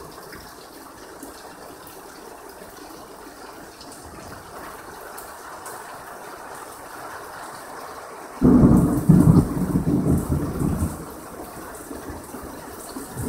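Heavy rain falling steadily, then about eight seconds in a sudden loud clap of thunder that rumbles for two to three seconds before dying back under the rain.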